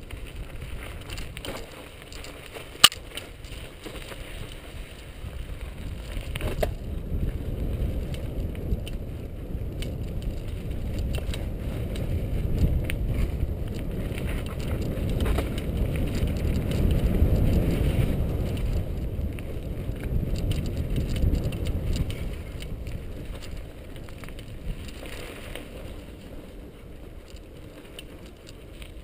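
Mountain bike riding down a dirt single-track trail, close to the bike: a low rumble of tyres on the dirt with scattered clicks and rattles, and one sharp click about three seconds in. The rumble swells to its loudest around the middle and eases off after.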